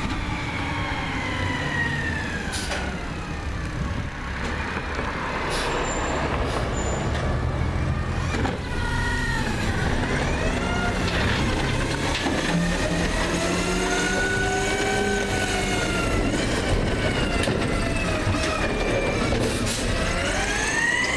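Peterbilt 320 garbage truck, running on CNG, with a McNeilus ZR automated side-loader: its engine and hydraulics rev up and down in long rising and falling whines as the arm picks up carts and the truck drives up close. A few sharp knocks come through the running.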